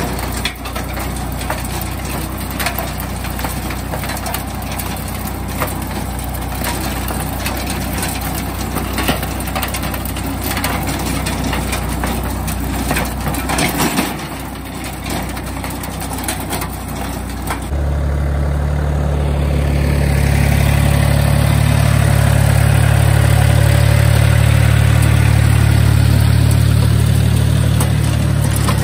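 DongFeng 244 mini tractor's three-cylinder diesel running under load, driving a rotary tiller through ploughed virgin ground, with many scattered knocks and clatters. About two-thirds of the way through, the sound changes abruptly to a louder, steadier engine hum.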